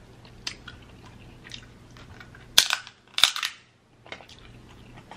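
Close-miked eating of crab legs: small wet chewing clicks, then two loud, sharp crackling cracks about two and a half and three seconds in, as crab leg shell is broken or bitten.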